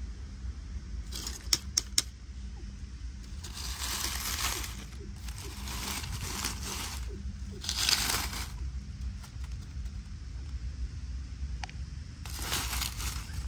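Dry leaf litter and plastic rubbish rustling and crinkling in several bursts as it is pushed aside by hand. A few sharp clicks come just before the first burst, and a low steady hum runs underneath.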